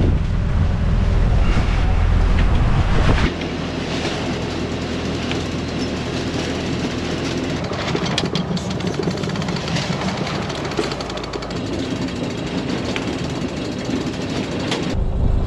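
Wind rumbling on the microphone for the first three seconds, then a yacht's sheet winch being cranked, its ratchet clicking in quick runs, over steady wind and water noise.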